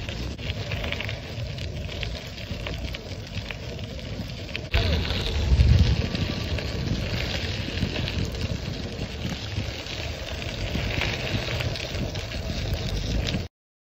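Wind buffeting the microphone of a moving bicycle, with the rumble of tyres rolling over a dirt trail. The noise jumps louder about five seconds in and cuts off suddenly just before the end.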